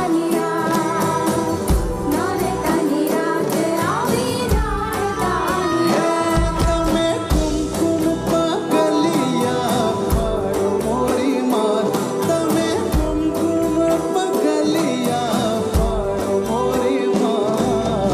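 Garba song: a singing voice over a steady percussion beat and instruments.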